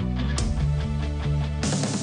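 Recorded melodic hard rock song with guitar, bass and drums; a cymbal crash comes in near the end.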